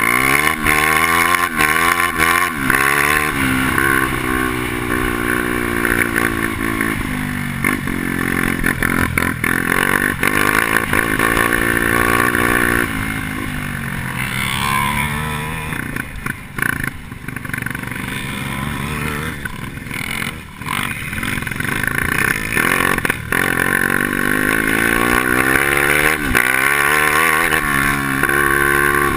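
Two-stroke grass-track kart engine heard onboard under racing, its revs climbing on each straight and dropping back into the turns, over and over.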